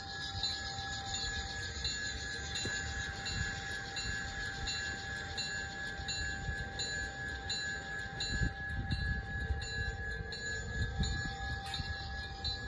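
G-scale Santa Fe NW-2 model diesel switcher pulling hopper cars along garden-railway track: a steady electric whine with a regular clicking about twice a second from the running gear.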